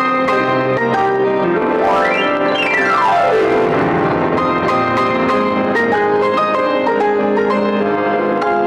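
Piano playing continuously, with a fast run that sweeps up the keyboard and straight back down about two seconds in.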